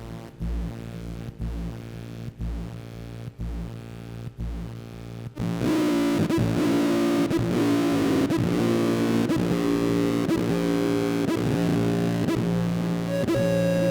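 Soma Laboratories Lyra-8 analog synthesizer playing a dark distorted drone that pulses about once a second. About five seconds in it swells abruptly louder into a dense, gritty chord of many tones. Near the end a higher tone enters and begins to glide upward.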